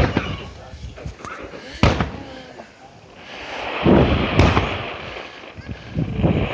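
Aerial fireworks shells bursting overhead: a sharp bang at the start and another near two seconds, then the loudest booms about four seconds in and one more near the end, over a crackling hiss that sets in about three seconds in.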